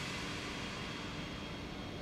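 Steady workshop room tone: an even low hum and hiss with no distinct events.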